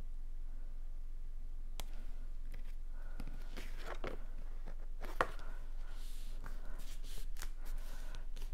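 Cardstock card pieces handled by hand, lifted, folded and pressed flat: irregular rustling, crinkling and light taps starting about two seconds in and growing busier toward the end.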